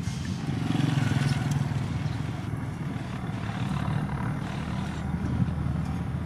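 Heavy diesel engine of road-building machinery running steadily, a little louder for about a second near the start.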